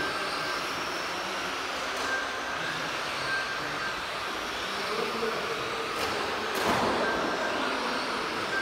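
Electric 1:10-scale Tamiya TT01E RC trucks racing: a steady whine and hiss of small electric motors and tyres on the track, with short high beeps now and then. About two-thirds of the way through, a louder surge as trucks pass close.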